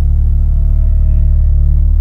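Background music: a deep, dark drone with a pulsing low layer and a high tone that slowly falls in pitch.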